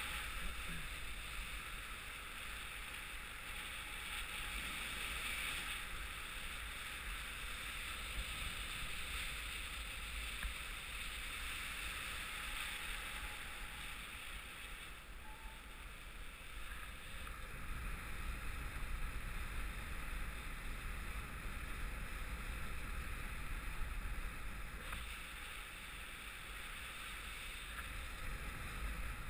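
Steady rush of wind noise on the microphone from airflow during paraglider flight, with a low buffeting rumble that grows somewhat stronger past the middle.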